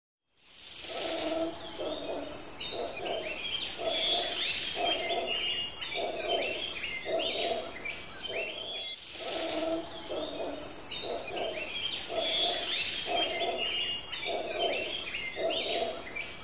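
Forest ambience that fades in: many birds chirping and twittering, over a lower sound that pulses regularly about every two-thirds of a second.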